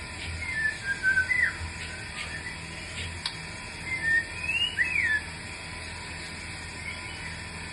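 White-rumped shama singing two short phrases of clear whistled notes, some sliding up or down in pitch, about half a second in and again about four seconds in.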